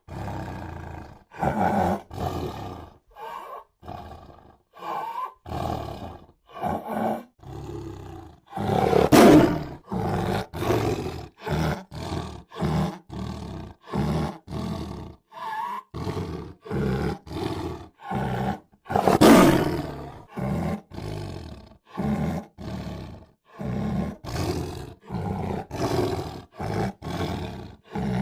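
Tiger calling in a string of short roars about once a second, with two louder, longer roars about nine and nineteen seconds in.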